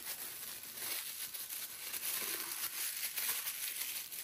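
Packaging rustling and crinkling as a packed statue piece is worked out of its box, with a run of small crackles.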